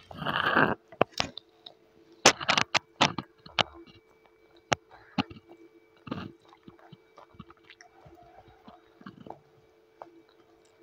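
A young child eating noodles with a fork, slurping and chewing: a loud slurp at the start, another burst of slurping about two seconds in and again near six seconds, then quieter chewing with a few sharp clicks. A faint steady hum runs underneath.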